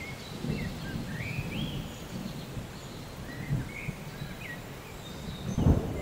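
Thunderstorm ambience: small birds chirping over a low rumble of thunder and rain, the rumble swelling louder near the end.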